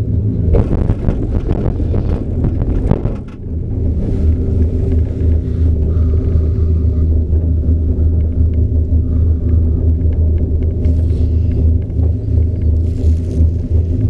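Inside a Poma four-seat detachable gondola cabin riding the haul rope downhill: a steady low rumble and hum. Near the start, a rattling clatter of about three seconds as the cabin passes a lift pylon and runs over its roller assembly.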